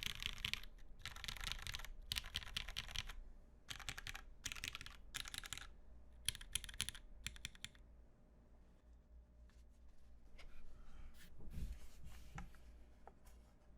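Typing on a CMGTKL mechanical keyboard with lubed Ultraglide linear switches, aluminium plate, gummy o-ring mount and GMK keycaps. Fast keystrokes come in bursts for the first half, then thin out to a few scattered single key presses and soft knocks.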